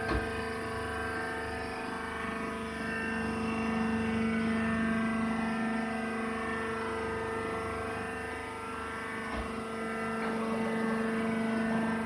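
Horizontal wood chip baler's hydraulic pump unit running, a steady even hum with a couple of faint knocks.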